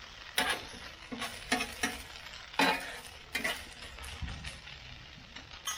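Metal spatula scraping and clacking on the steel top of a Blackstone griddle, about six separate strokes, as shredded hash brown potatoes are turned over a steady frying sizzle.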